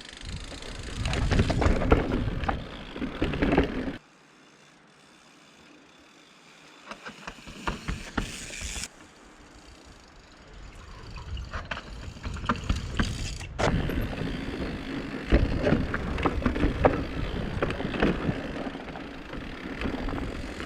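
Mountain bike riding down a dirt trail: tires rumbling over the ground with rapid clicks and rattles from the bike, broken by two abrupt cuts, a quieter stretch between about 4 and 10 seconds in.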